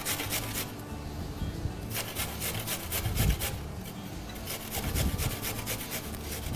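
Carrot being grated on a handheld box grater: quick rasping strokes in three runs, pausing briefly at about one second in and again at about three and a half seconds in.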